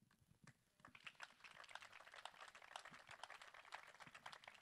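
Faint applause from a small audience, a dense patter of individual claps starting about a second in.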